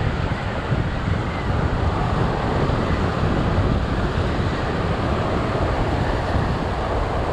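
Sea surf breaking and washing over shore rocks, a steady rushing noise, with wind buffeting the microphone.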